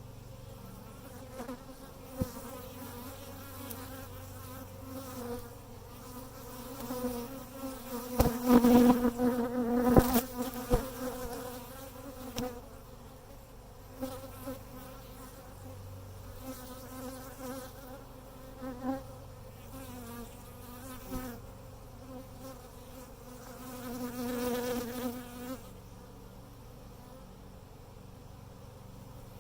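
Honeybees buzzing around an opened hive during a brood inspection. The hum swells loudest for a few seconds near the middle and again briefly near the end, with a few sharp clicks.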